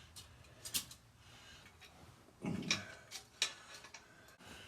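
A few sharp metallic clicks and one duller knock about two and a half seconds in: a homemade hose-clamp piston ring compressor being fitted around a piston.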